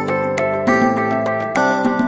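Instrumental background music with a steady beat and sustained melodic notes.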